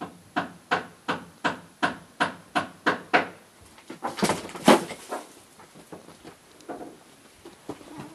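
A run of about ten even knocks, roughly three a second, then a louder, brief scuffle of two cats grappling on the floor, followed by a few softer knocks.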